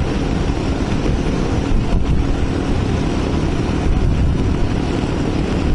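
Mondial RX3i Evo motorcycle's 250 cc single-cylinder engine running steadily at a road cruise of about 50 km/h, heard from the rider's position, mixed with steady wind and road noise.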